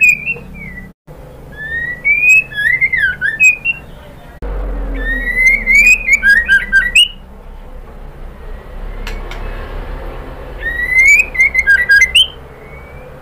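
White-rumped shama (murai batu), given as a female calling to a male, singing short bursts of whistled song. Each burst is a run of rising and falling whistles mixed with sharp clicks, and three bursts come a few seconds apart, the last near the end. A faint low hum runs under the song from about four seconds in.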